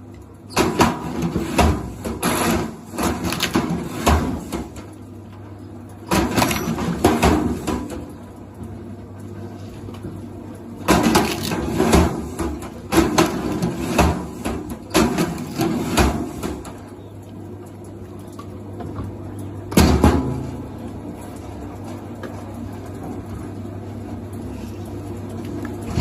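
Irregular clattering and knocking in short spells over a steady low hum.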